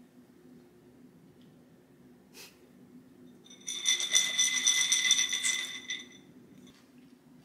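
Almonds rattling and clattering across a ceramic plate as it is shaken, with a ringing tone from the plate, starting about three and a half seconds in and lasting about two seconds.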